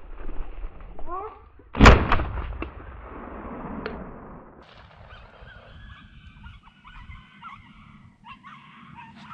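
A single shotgun shot about two seconds in, with a short tail of echo. From about halfway on come repeated high yelps of hunting dogs (podencos).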